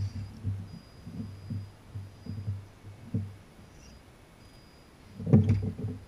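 Irregular low thumps and rumbling from an RC rock crawler working over rocks, with a louder clattering knock about five seconds in.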